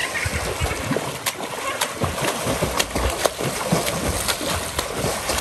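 A swimmer's arms and legs splashing water as he swims front crawl across a pool, in repeated splashy strokes about twice a second.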